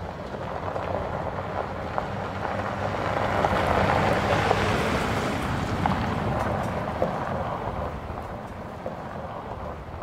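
Mercedes-Benz X350d pickup driving past on a gravel track: its V6 diesel engine and the tyres crunching over gravel. The sound swells to its loudest about four seconds in, then fades as the truck drives away.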